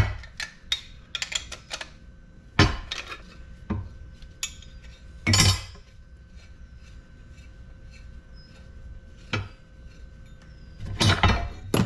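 Metal parts of a scrap LED light fixture clinking and knocking as it is taken apart by hand: scattered sharp clicks and a few louder clanks.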